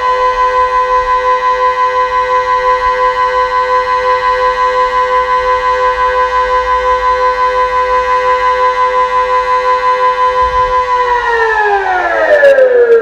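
Delta 6 civil-defence siren sounding Austria's steady test tone (Sirenenprobe): a loud, steady chord that wavers several times a second. Near the end it slides down in pitch as the signal winds down.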